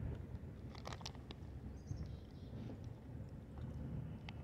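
Wind buffeting the phone's microphone with a steady low rumble, and a few short clicks about a second in.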